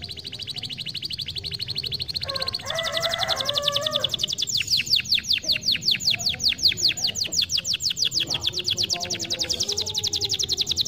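Domestic canary singing one long unbroken trill. A fast, fine trill switches, about two and a half seconds in, to a slower run of evenly repeated down-slurred notes, roughly seven a second.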